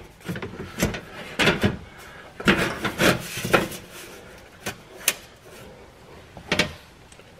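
A car's under-engine splash shield being pushed and shuffled into place against the underbody: a string of knocks and rubbing scrapes in short clusters, with a couple of single sharp knocks later on.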